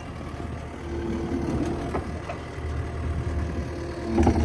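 Kubota SVL75-2 compact track loader's diesel engine running steadily as the machine manoeuvres, with a few sharp clicks about two seconds in. The sound grows louder just before the end.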